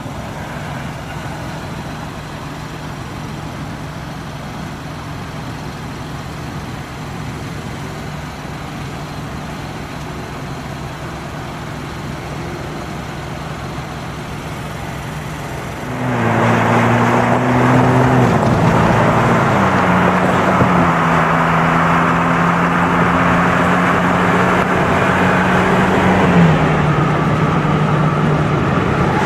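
Ford Bronco Warthog prototype idling with a steady low hum. About halfway through, the sound jumps louder to driving on the road: road and wind noise, with engine tones that drop in pitch in steps three times.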